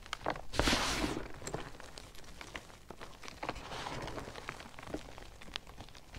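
Hands squeezing and crumbling handfuls of powdered BSN gym chalk: a soft, crunchy crackle of many small crumbs. It is loudest about half a second to a second in and swells again near four seconds.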